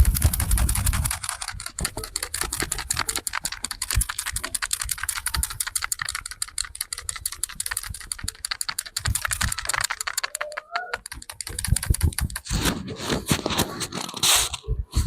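Barber's hands tapping quickly on the head during an Indian head massage: a rapid, even run of light taps, turning to louder, rougher strokes near the end.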